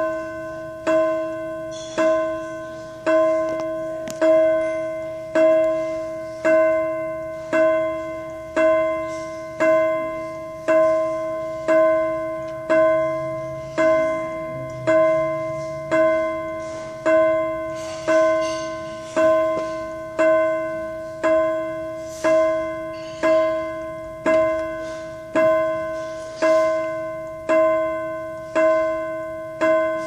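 A bell struck about once a second at a steady, even pace. Each stroke rings at the same pitch and fades before the next one.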